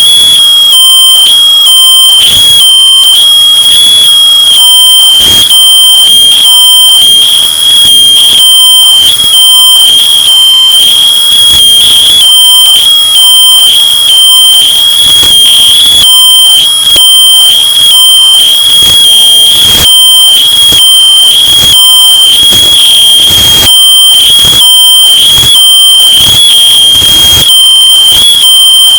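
Smoke detector alarm sounding its shrill, rapidly repeating beep without pause. It is heavily distorted and clipped, having been bass boosted and pushed to extreme loudness.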